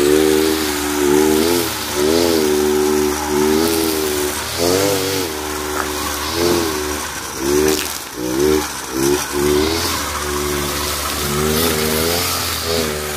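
Kawasaki TJ45 backpack brush cutter's two-stroke engine running and revving up and down as the throttle is worked, with a few quick revs in the middle. The cutting head hisses through the grass with each swing.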